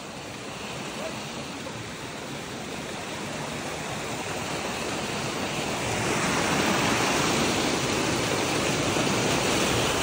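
Waterfall rushing over rocks: a steady roar of falling water that grows louder over the first six seconds, then holds steady.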